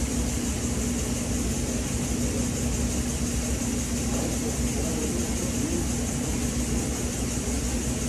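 Steady mechanical hum with a constant low tone and an even hiss. It does not change at all.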